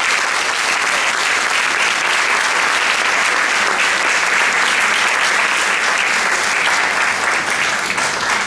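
Audience applauding, loud and steady, thinning out near the end.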